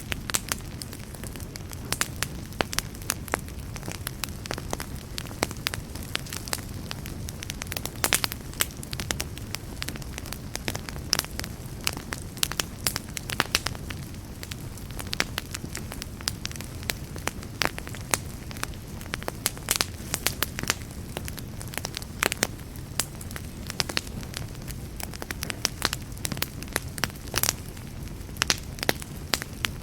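Wood campfire burning with a steady low rumble, and many irregular sharp crackles and pops scattered throughout.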